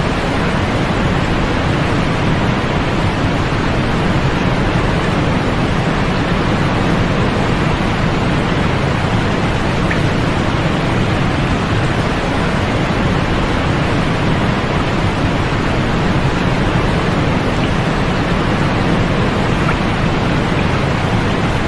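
Steady, unchanging white noise of the kind played as a sleep aid: an even rushing hiss, fuller in the lows and mids and thinning out in the highs.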